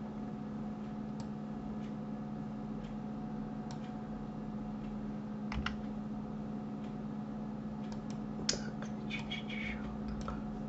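Scattered clicks of a computer mouse and keyboard keys, a few sharper ones together about eight and a half seconds in, over a steady background hum.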